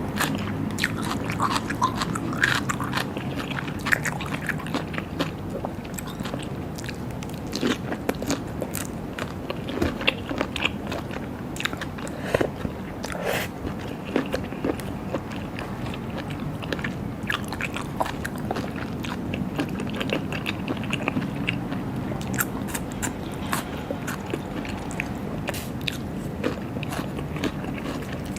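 Close-miked eating of raw seafood: steady wet chewing and biting, with many scattered sharp clicks and smacks.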